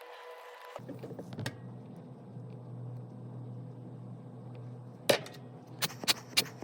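A few sharp clicks and taps of small tools on an iPhone during a camera repair, over a low steady hum that starts about a second in.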